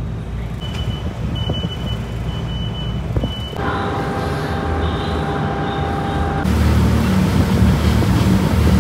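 Passenger ferry's engine rumbling steadily, in three cut-together stretches. The first has a repeated high beep, the second is a steadier hum with a whining tone heard inside the cabin, and in the last couple of seconds the rumble is louder, with wind on the microphone.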